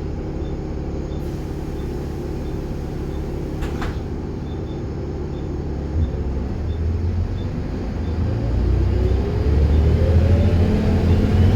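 A diesel bus engine runs steadily at idle under a faint regular ticking. About six seconds in it changes and grows louder as the bus pulls away, with a whine rising in pitch through the last few seconds.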